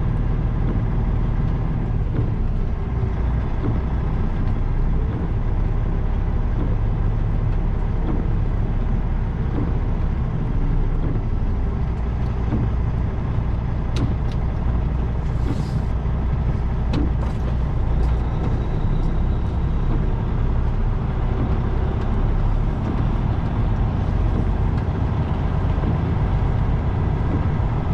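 Semi-truck diesel engine running steadily at low speed while the rig is maneuvered to back into a loading dock, with a brief hiss of air about halfway through.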